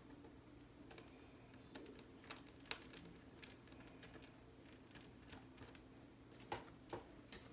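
Faint scattered clicks and taps from handling small laptop parts, over a low steady hum. The clicks come a few seconds apart, with a cluster of louder ones near the end.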